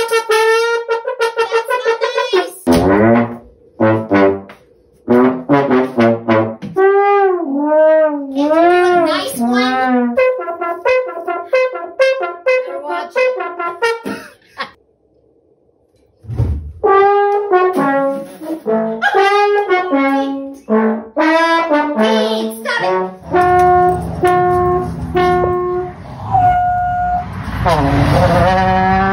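Trombone played as comic sound effects: a string of short blasts, wobbling slides up and down in pitch, and a run of repeated held notes, broken by a brief silence about halfway through.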